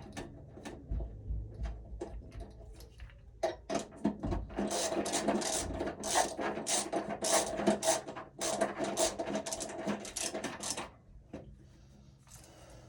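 A screw being driven into a metal electrical panel cover: a dense run of rapid clicking and rattling from about three and a half seconds in until near the end, with scattered handling clicks before and after.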